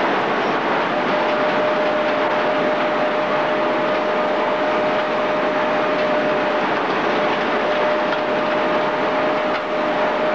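Machine running steadily as it churns and chops fibrous plant material in a steel hopper: a continuous mechanical noise with a constant whine held through it.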